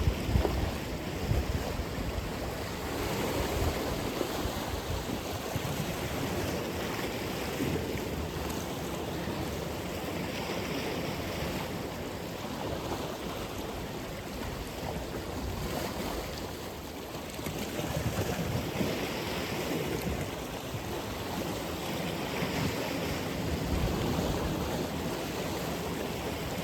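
Atlantic Ocean surf washing ashore as a continuous hiss of breaking waves, surging and easing about every four seconds as each wave breaks.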